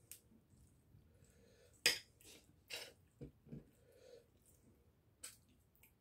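Quiet eating at a table: a few scattered faint clicks and taps of hands and a utensil on a plate, the sharpest about two seconds in.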